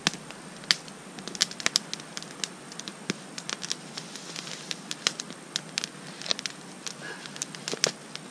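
Small wood campfire crackling, with frequent irregular sharp pops and snaps over a steady hiss.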